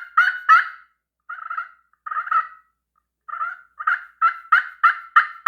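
Slate turkey call played with a striker, making hen yelps: short rising notes at about three a second, a few broken notes with pauses, then a longer steady run of yelps.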